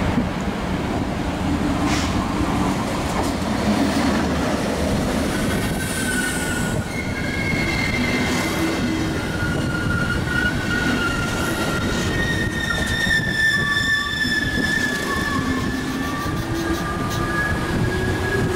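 Passenger train running slowly past: the Siemens ER20 diesel-electric locomotive rumbles by, then the coaches roll past with wheels squealing. Several high squealing tones start about five or six seconds in and run on over the rolling noise.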